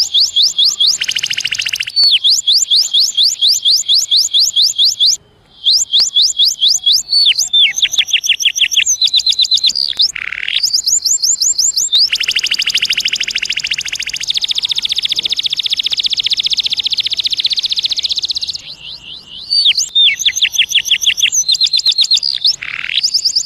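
Canary singing: fast, high-pitched trills of rapidly repeated notes, with a brief break about five seconds in and another near 19 seconds, and one long unbroken rolling trill in the middle.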